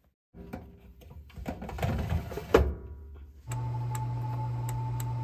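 Handling clatter with a single loud knock about two and a half seconds in, then an electric oven starts up and runs with a steady hum, set to bake at 180 °C, with faint clicks over the hum.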